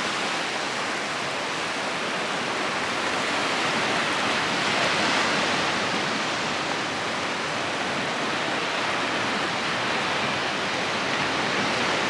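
Small waves washing in over shallow water and wet sand at the shoreline: a steady rushing hiss that swells a little about halfway through.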